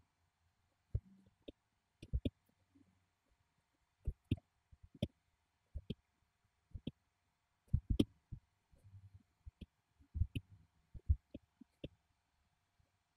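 Apple Pencil tip tapping and stroking on an iPad's glass screen: faint, irregularly spaced clicks and light knocks, about fifteen in all, some in quick pairs.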